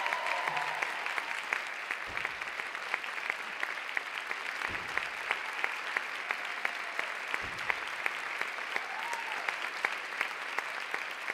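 Large audience applauding steadily, a dense wash of clapping with individual claps standing out sharply.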